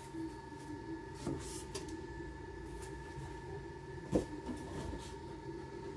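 Steady faint high-pitched electrical whine over a low hum, with a few soft knocks and one sharper knock about four seconds in.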